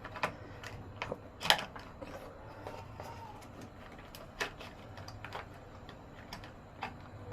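Scattered sharp clicks and light knocks of hands and tools working on the fittings of an instant shower water heater, about half a dozen, the loudest about a second and a half in and again about four and a half seconds in.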